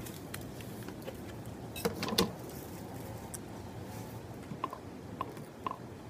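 A person eating: a few light clicks and knocks, loudest about two seconds in, over a steady low background noise.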